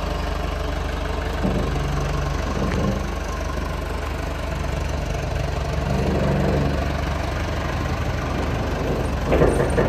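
JCB 214S backhoe loader's diesel engine idling with a steady low rumble, with a few louder knocks near the end.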